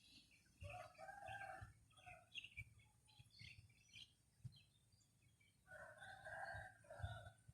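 A rooster crowing twice, faint and some distance off, with small birds chirping lightly.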